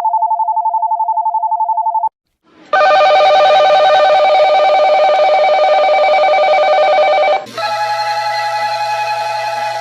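Seoul subway train-approach signals for upbound trains, three in a row: a fast two-tone electronic trill that stops about two seconds in, then after a short gap a louder bell-like ringing, then from about seven seconds in a different ringing tone over a low hum.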